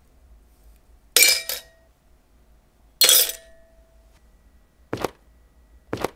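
Sterling silver watch case parts clinking against a glass beaker: two bright clinks with a brief ring, then two duller knocks near the end.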